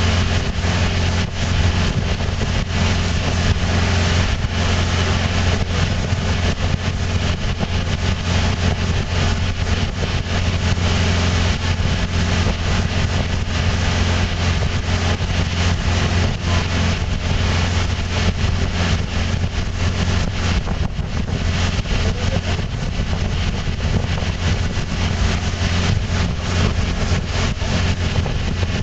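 Yamaha 150 outboard motor running steadily with the boat underway at speed, a constant low engine drone mixed with the rush of wind and churning wake water.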